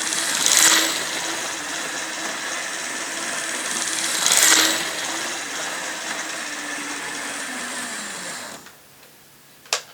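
OO gauge model locomotive running on its track during a test run after servicing: a steady whirring of its small electric motor, swelling louder twice. Near the end the motor winds down with a falling pitch and stops, followed by a single sharp click.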